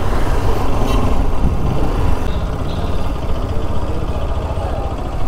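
Motorcycle engine running at low speed, with wind and road noise, heard from the rider's seat. It eases off a little in the second half as the bike slows.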